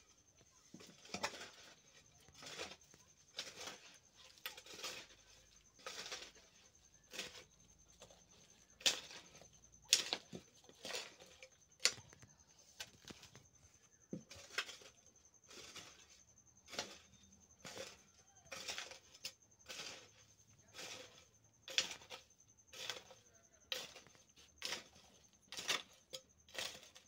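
A hoe scraping and pulling loose earth and stones into a foundation trench, in short strokes roughly once a second, some harder than others.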